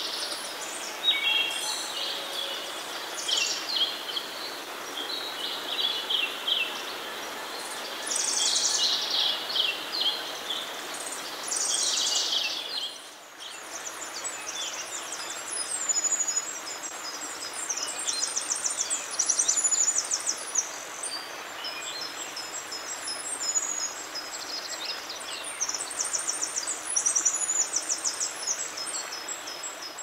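Forest ambience: birds singing over the steady noise of falling water from a waterfall. About halfway through the sound dips briefly, and the birdsong turns to high, rapid trills.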